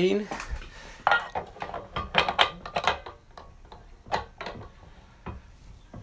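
Metal clinks and knocks of a vintage Atomic espresso machine's aluminium filter holder, packed with finely tamped coffee, being fitted into the group head and twisted to lock. The knocks are scattered and short, with a quick cluster about two to three seconds in.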